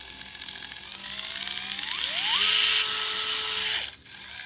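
DeWalt DCF682 8V MAX gyroscopic cordless screwdriver running free with nothing on the bit. It runs slowly at first, then its motor whine rises in pitch twice up to full speed, holds there for about a second and a half, and stops shortly before the end.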